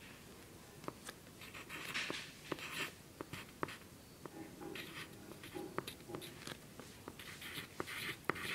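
Pen writing on graph paper: soft, short scratching strokes with light taps as the tip touches down, forming numbers and symbols.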